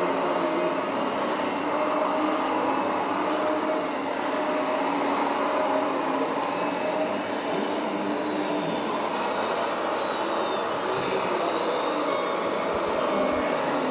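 Radio-controlled model excavators at work: a steady whine of their electric motors and hydraulic pumps, several tones that shift slightly in pitch as the arms and tracks move.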